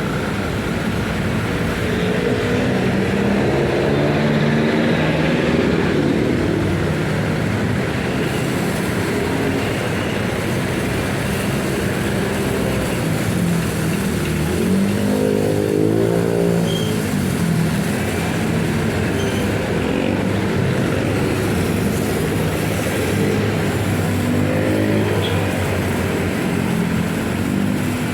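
Pressure washer running continuously, its motor pitch dipping and rising a few times as the load changes.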